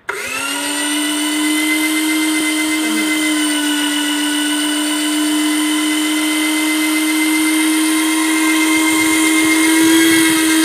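Compact electric airless paint sprayer switched on: its pump motor starts suddenly, winds up over about half a second, then runs loud and steady on one even tone, edging slightly higher near the end.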